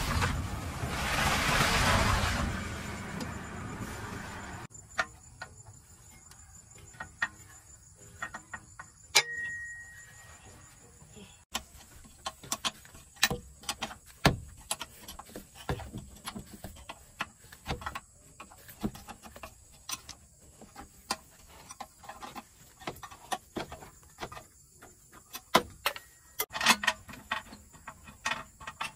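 A rushing noise swells and fades over the first four seconds, then scattered metallic clicks and knocks of tools and parts being handled during a truck clutch repair, with a cluster of knocks near the end.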